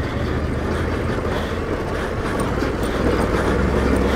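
Motorcycle engine running steadily as the bike is ridden off-road: an even low drone with no sharp changes.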